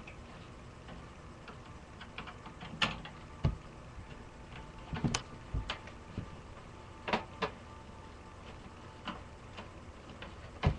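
Irregular sharp clicks and taps of a screwdriver working at motherboard screws in a desktop computer case, the loudest near the end.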